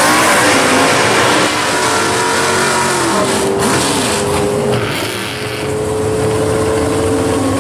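Drag-racing muscle car engines at full throttle as a car launches down the strip, then a 1969 Chevrolet Camaro drag car's engine running and revving as it creeps forward after its burnout. The engine pitch rises and falls, and the sound stays loud throughout.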